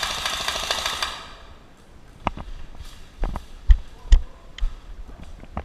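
An airsoft electric rifle firing a full-auto burst of rapid clicks for about a second and a half. Scattered sharp knocks and thumps of the player's footsteps and gear follow, two of them loud.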